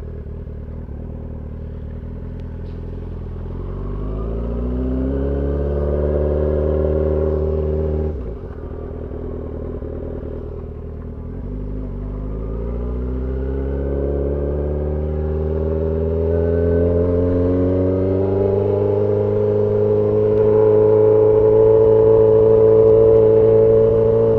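2003 Yamaha R6's inline-four engine under way: the revs rise about four seconds in, drop sharply at a gear change about eight seconds in, then climb again and hold steady near the end.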